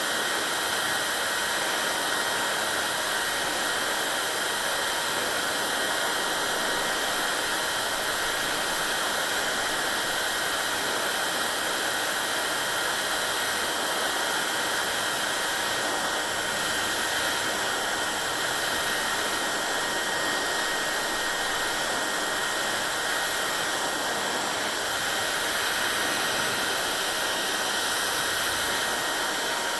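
Hair dryer running continuously: a steady even rush of air over the fan motor's faint whine, unchanging throughout.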